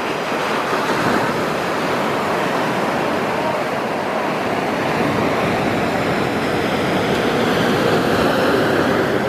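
Shorebreak surf: waves breaking and whitewater washing in, a steady, even rush of water.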